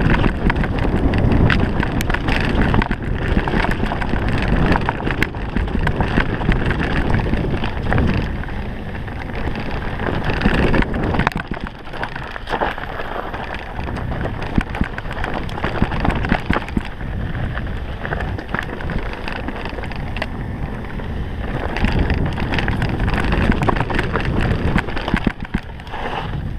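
Mountain bike rolling fast down a dirt trail: tyres crunching over dirt, stones and dry leaves, the bike rattling and knocking over bumps, with wind buffeting the microphone.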